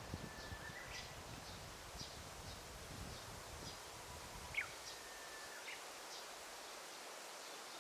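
Daytime forest ambience: a faint steady hiss with small high chirps repeating about twice a second, and two short whistled bird calls, one near the start and a louder, falling one about halfway through.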